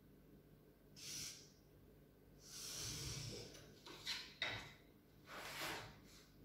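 Faint scratchy hissing of a marker drawn along a ruler across a wooden plank, four short strokes, with a few light clicks about four seconds in as the ruler and board are shifted.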